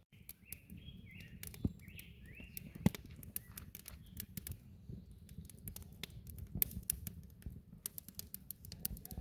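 Small birds chirping in short bending calls for the first few seconds, over a steady low rumble, with many scattered sharp clicks and taps throughout.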